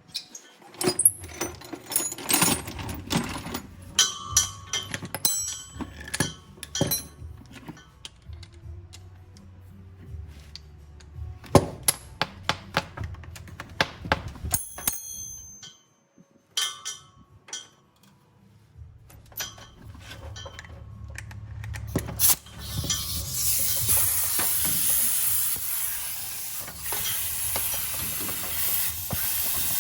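Metal tools clinking and knocking during repair work on a farm vehicle, over a low steady hum. About two-thirds of the way through, a loud steady hiss sets in and continues.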